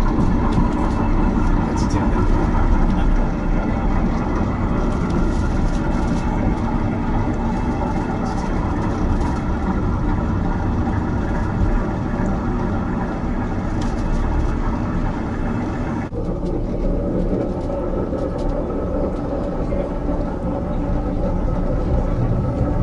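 Narrow-gauge train running on the rails, a steady rumble and rattle. About two-thirds of the way through the sound changes abruptly and becomes duller.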